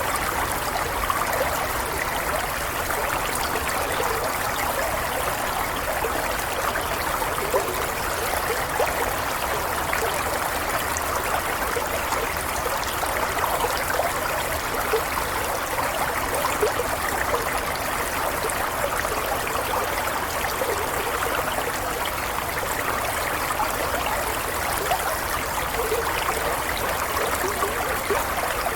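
Running water babbling and trickling steadily, like a small stream, with no break or change.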